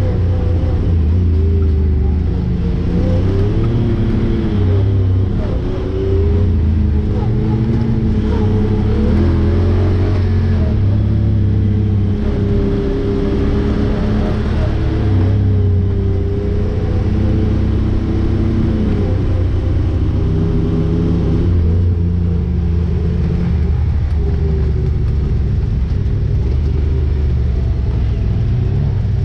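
Side-by-side UTV engine running on a trail ride, its pitch rising and falling as the throttle goes on and off, over a steady low rumble.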